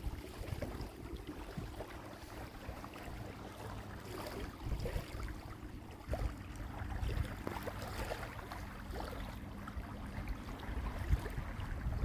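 Waterside ambience: low wind rumble on the microphone with a faint steady hum and scattered small clicks.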